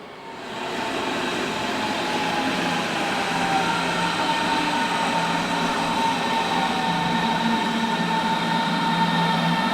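Electric train running through the station, its traction motors giving a steady whine of several tones over the rumble of the wheels. It grows louder over the first second or two as it approaches.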